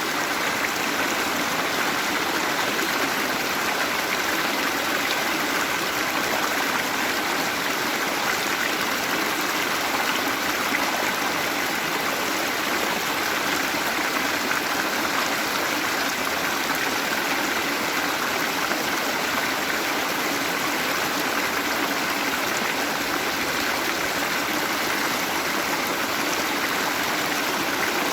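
Waterfall, water falling and running over rocks in a steady, even rush.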